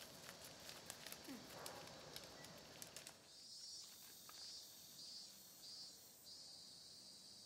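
Near silence outdoors: faint light crackles of paper being handled in the first three seconds, then a faint high chirping, likely an insect, repeating about twice a second.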